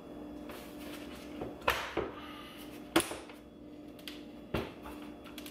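Sharp clicks and knocks of hard plastic trim as a C8 Corvette center console piece is handled and lined up over its clips and guide pin: four separate knocks, the loudest about three seconds in, over a faint steady hum.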